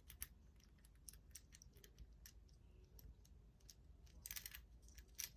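Faint small metal clicks and taps as Master Lock #911 parts are fitted back into the lock body by hand, with a brief slightly louder run of clicks about four seconds in.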